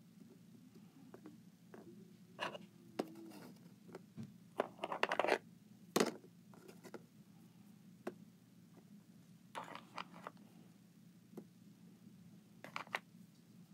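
Small plastic toy figures being handled, slid and set down on a sheet of cardboard: scattered light clicks and scrapes, busiest about five seconds in, with a sharp tap about six seconds in.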